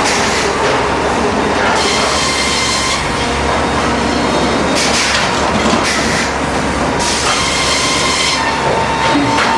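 Circle sawmill with a Hurdle Magnum LP carriage running while cutting cross ties. It makes a loud, steady machinery din, with a brighter hissing noise that swells and fades every couple of seconds.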